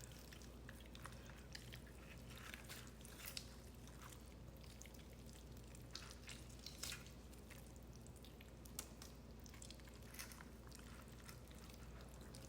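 Faint, wet squishing and tearing of cooked rotisserie chicken being pulled apart by hand, with scattered small clicks and ticks throughout.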